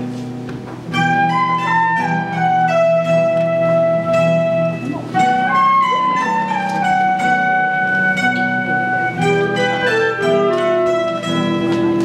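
Live acoustic chamber music: a flute enters about a second in with a melody of held notes, over a small plucked string instrument and a classical guitar.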